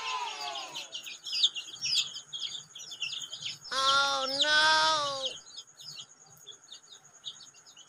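Many chicks peeping in short, high chirps throughout. A louder, drawn-out call in two parts sounds from about four to five seconds in, and a falling tone fades out in the first second.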